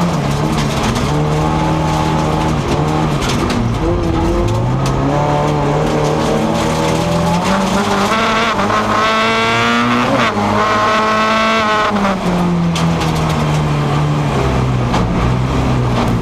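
Race car engine heard from inside the cabin, its pitch climbing and falling back several times as the driver accelerates and lifts, with scattered knocks from the car over the track.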